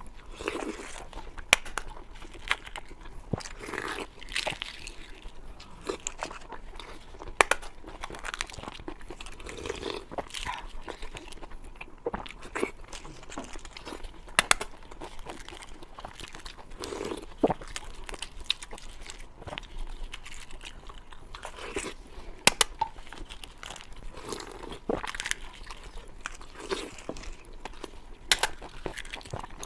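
Close-up eating sounds: a person biting and chewing crunchy food, with sharp crunches at irregular moments and softer chewing between.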